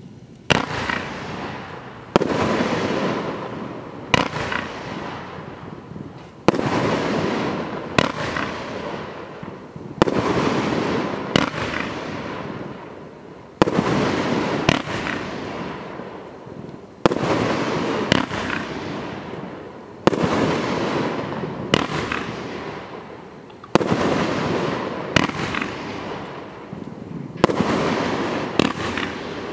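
A 30-shot, 30mm consumer firework cake (Celtic Fireworks 'Stealth Rising') firing its shots one after another, with a sharp report every second and a half to two seconds. Each report is followed by a noisy tail that fades away before the next shot. The first shot comes about half a second in.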